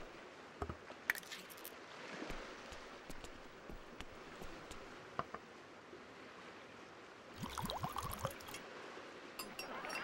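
Faint household sounds: scattered small clicks and knocks over a soft, steady watery hiss, with a short cluster of squeaky scraping creaks about seven and a half seconds in.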